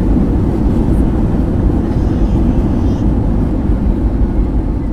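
Airbus A320-200 cabin noise: a loud, steady low rumble of engines and airflow.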